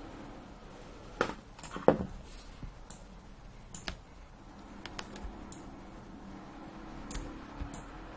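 Scattered, irregular clicks of a computer mouse and keyboard being worked, about eight in all, the loudest two in the first two seconds, over a faint steady hum.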